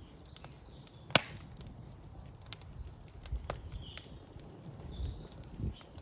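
Wood fire crackling in an open brick fireplace: one loud, sharp pop about a second in, then scattered smaller clicks and snaps from the burning logs.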